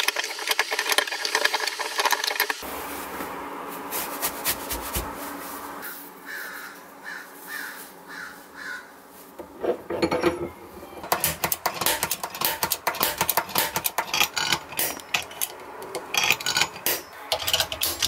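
Rubbing and handling of a vintage screwdriver with a wooden handle, then a small metal pin punch scraping and clicking against the rusty steel pins through the handle, in quick irregular clicks from about eleven seconds in.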